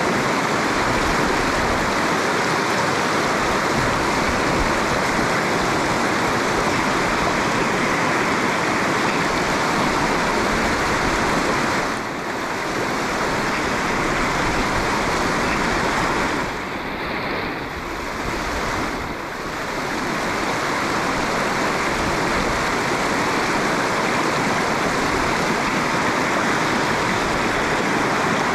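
Fast-flowing river water rushing steadily, with brief dips in level a few times.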